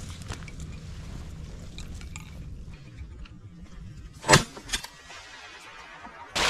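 Shotgun fired at flying ducks: one loud blast about four seconds in, then a second, quieter bang about half a second later.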